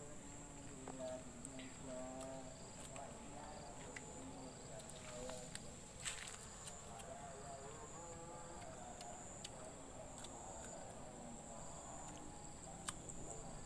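Insects, crickets among them, chirring steadily in a high, even tone, with one crisp crunch about six seconds in as a crystal guava is bitten.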